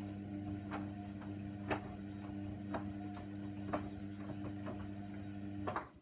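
Hoover Nextra 6 washing machine running mid-wash: a steady motor hum with a sharp click about once a second. It stops abruptly near the end.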